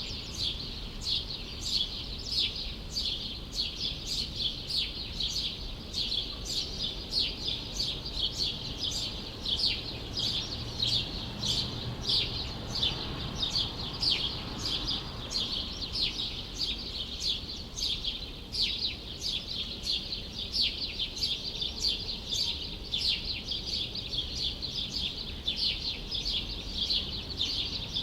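Small birds chirping without pause: a dense stream of short, sharp calls that slide downward, several a second, over a low, steady hum of city background noise.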